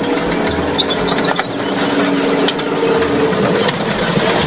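Military tank running over and crushing a minivan: the engine drones steadily under load while the tracks clank and metal crunches beneath it.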